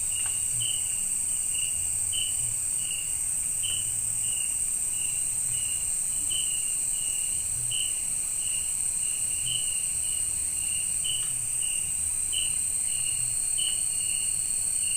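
Night chorus of crickets and other insects: a steady high-pitched trill under a lower chirp that repeats about two to three times a second.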